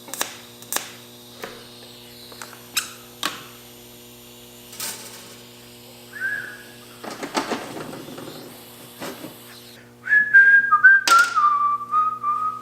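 A man whistling a tune, starting about ten seconds in. Before that, a few sharp clicks and knocks and a rustle, over a steady hum.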